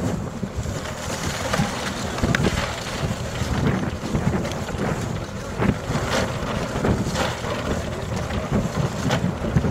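Wind buffeting the microphone with a steady low rumble, over intermittent knocks and rustles of cardboard ammunition boxes and plywood crates being handled.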